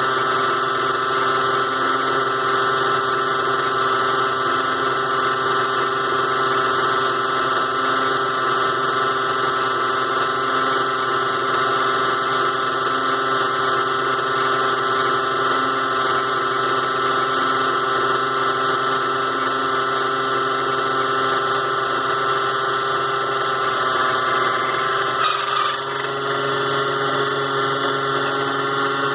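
Small DC motor of a ZhouYu 6-in-1 mini lathe running steadily under speed control, a constant whine while it turns an aluminium part, with a brief dip and change in pitch about 25 seconds in.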